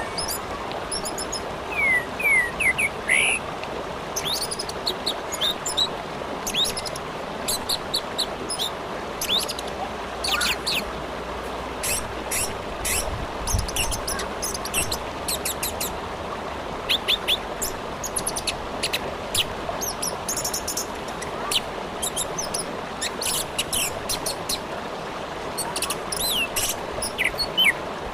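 Orange-headed thrush singing a long run of quick, high chirps and short gliding notes, over the steady rush of a river.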